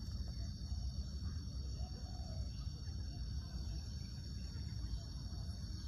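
Open-air background: a steady low rumble with a faint bird call about two seconds in.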